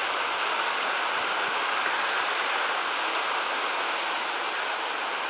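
Steady rush of flowing water, an even hiss with no rise or fall.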